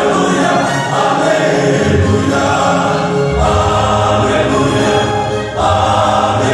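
Two gospel vocal quartets singing together in choral harmony, holding sustained chords that change every second or two.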